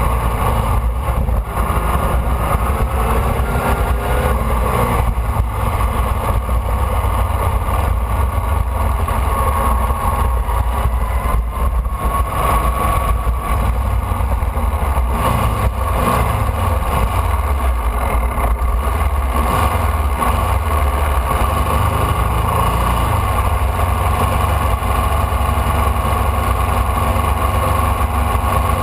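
Formula Vee's air-cooled Volkswagen flat-four engine running steadily at low revs, heard from onboard. The pitch dips and rises a few times partway through.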